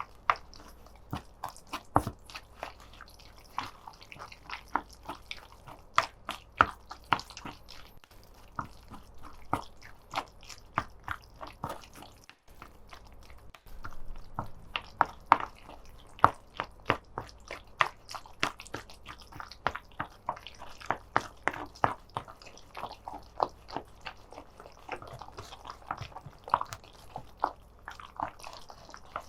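Chicken nugget mixture being worked by hand: irregular sharp sticky clicks, several a second, with a brief break about twelve seconds in.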